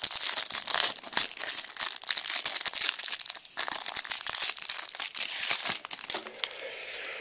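Foil trading-card pack wrapper crinkling and rustling as it is pulled apart and handled, a dense run of rapid crackles that dies down about six seconds in.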